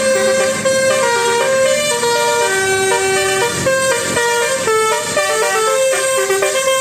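Bus 'telolet' musical air horn playing a tune: loud held notes with many overtones, stepping from pitch to pitch every fraction of a second.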